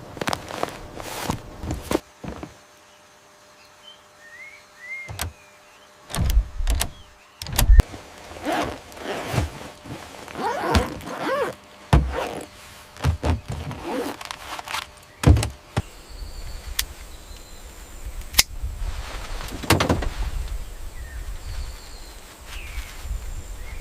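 A series of irregular thuds and knocks, some sharp and some dull, with a steady low rumble setting in about two thirds of the way through.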